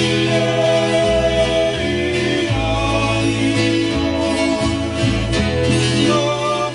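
Live Hawaiian music: men's voices singing a slow song in Hawaiian over acoustic guitar, with a steady bass line underneath.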